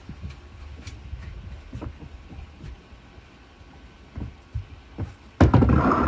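Bowling balls on a backyard lane: a faint low rumble with a few light knocks as a ball rolls back along the ball-return trough, then, about five seconds in, a sudden loud rolling rumble as a ball is bowled down the lane.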